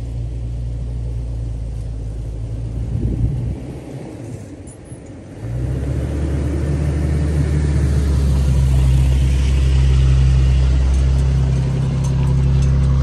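Toyota pickup driving slowly through soft sand and passing close by, its engine running with a steady low drone. The drone dips briefly about four seconds in, then swells louder as the truck comes alongside.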